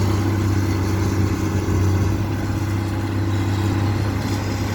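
A motor engine running steadily, a low even hum with no change in pitch.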